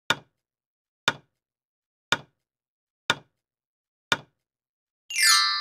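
Quiz countdown timer sound effect: five sharp ticks one second apart. About five seconds in, a louder ringing sound effect sweeps down in pitch and settles into a bright chime.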